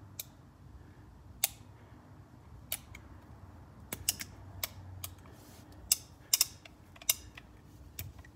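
Action of a first-generation 1885 Colt Single Action Army .45 revolver worked by hand: the hammer cocked and let down and the cylinder turning and locking, heard as about fifteen sharp metallic clicks at irregular intervals. The cylinder locks up solid.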